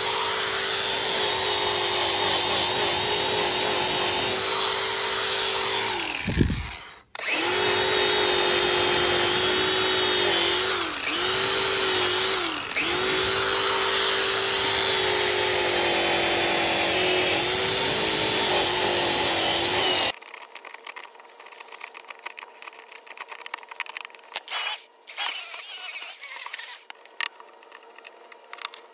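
Angle grinder running with a steady high whine as it grinds out rotten, punky wood. Its pitch sags briefly a few times under load, and it drops out and restarts about six seconds in. It cuts off abruptly about two-thirds through, leaving faint scratching and crumbling as a hand picks at the loose rotten wood.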